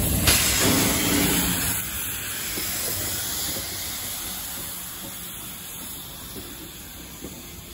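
USATC S100 0-6-0 tank steam locomotive passing close by, hissing steam. The hiss is loudest in the first two seconds and fades as the engine draws away.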